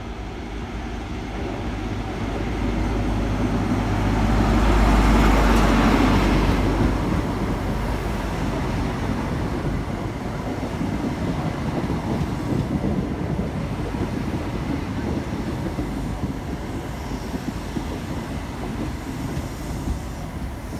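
Diesel train running along the line, growing louder to a peak about five seconds in, then settling to a steady running noise.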